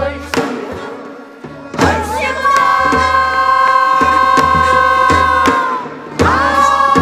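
Korean traditional ensemble singing in changgeuk style: several voices hold a long note together over janggu and buk drum strokes. The note breaks off just before the end and a new held note begins at once.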